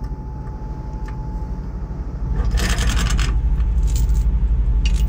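Steel tow chain clinking and rattling as it is handled and hooked around a truck frame, with a dense clatter of links about two and a half seconds in. A truck engine idles steadily underneath and gets louder about two seconds in.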